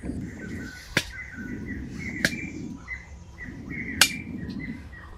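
A man blowing hard on a wood cooking fire in three long puffs, while a large knife chops sharply three times, the last chop the loudest. Small birds chirp throughout.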